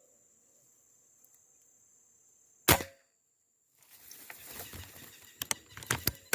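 A single sharp shot from a 5.5 mm Beeman 1336 PCP air rifle, under a faint steady high insect drone. After a short break comes a stretch of rustling with several sharp clicks.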